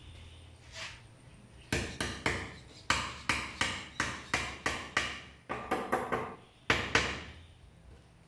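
Hammer striking wood, about sixteen sharp blows in quick runs of roughly three a second, starting a couple of seconds in and stopping near the end: a small stopper being nailed in place to hold the plank against the planer's push.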